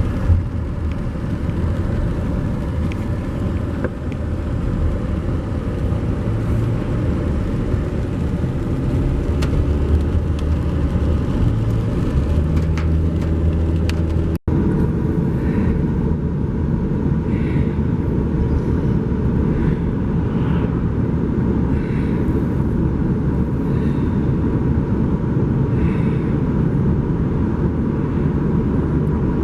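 Car driving: a steady low engine and road rumble. The sound changes abruptly about halfway through, at a cut.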